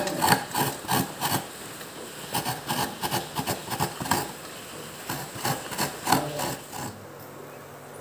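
Fresh coconut being grated by hand, the halved nut scraped against a serrated metal coconut scraper blade in a quick run of rough rasping strokes. A little before the end the scraping stops and a quiet steady hum is left.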